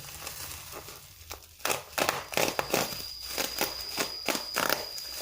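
Plastic packaging being handled and unwrapped: irregular crinkles and rustles that grow frequent about a second and a half in.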